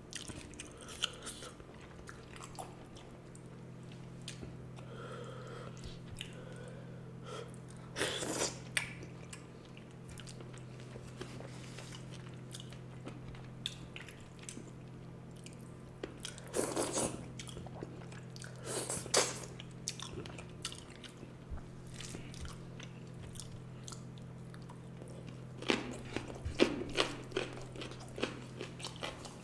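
Close-up chewing and mouth sounds of someone eating curry and rice: scattered smacks and clicks, with louder spells about eight seconds in, twice around seventeen to nineteen seconds, and near the end. A steady low hum runs underneath.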